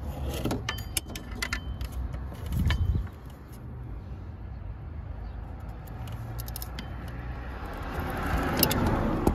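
Metal hand tools clinking and knocking against engine parts in several sharp clicks during the first few seconds, over a low steady rumble. Near the end a broad swell of noise rises and peaks.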